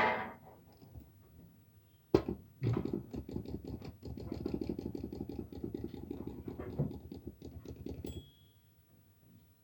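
Manual typewriter being typed on: one sharp key strike, then a fast, steady run of keystrokes lasting several seconds, ending with a single short ring of the margin bell.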